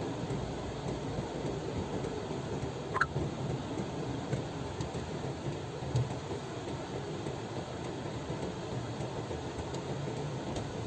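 Vehicle driving along a road: steady engine and road rumble, with a short high squeak about three seconds in and a low thump about six seconds in.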